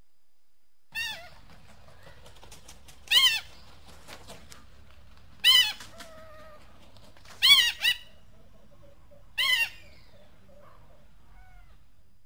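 An eagle calling: five loud, high, squealing calls about two seconds apart, the fourth doubled with a short second note, and a few faint short calls between them.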